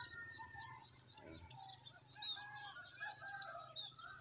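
A rooster crowing faintly, with drawn-out calls in the second half. Near the start a small bird gives four quick high chirps.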